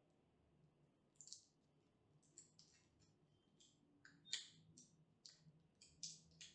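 Faint run of short, crisp rustles and clicks from gloved hands handling white gloves, the loudest about four seconds in, over a low steady hum.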